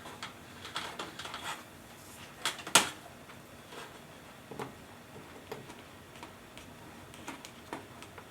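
Scattered small clicks and taps from handling a multimeter and its test probes while measuring a solar panel's voltage. The loudest is a sharp click about three seconds in.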